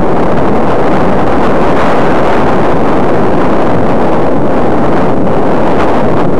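Loud, steady wind rushing over the microphone of a glasses-mounted camera worn by a cyclist riding on a road.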